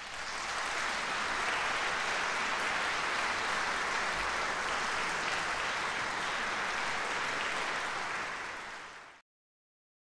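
Audience applauding steadily after a classical vocal performance; the applause swells up at the start, tapers slightly and cuts off abruptly about nine seconds in.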